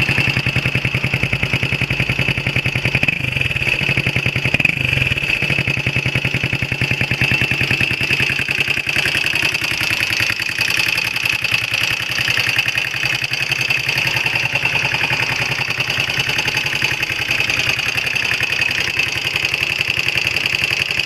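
Honda XL125R's air-cooled single-cylinder four-stroke engine idling steadily with a mechanical clatter: the abnormal engine noise that the owner is recording.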